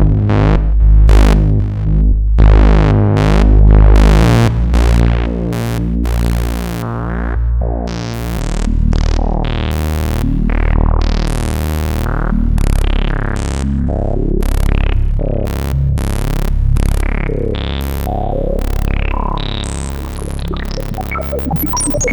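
Moog Source monophonic analog synthesizer playing a deep bass line of short, quickly changing notes, its tone brightening and darkening from note to note.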